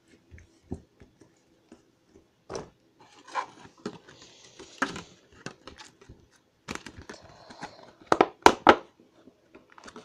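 Soft, sticky slime squished and pulled on a tabletop, making irregular wet crackles and clicks, then dropped into a clear plastic tub. The plastic tub gives a few louder knocks near the end.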